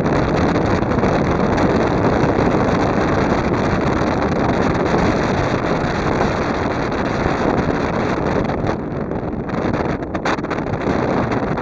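High-speed boat under way: a loud, steady rush of wind buffeting the microphone over the boat's running noise, breaking up in a few short gaps near the end.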